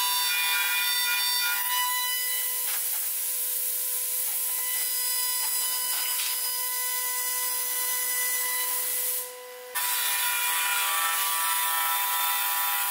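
High-speed router spindle of a Lee Hyun multi-purpose woodworking machine running with a steady whine while its bit cuts into the end of a clamped wooden board. The sound drops away for about half a second about nine seconds in, then comes back.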